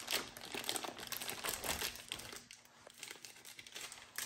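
Thin plastic packaging bag crinkling in the hands as it is pulled open from around a small toolkit, in irregular bursts with a brief lull partway through.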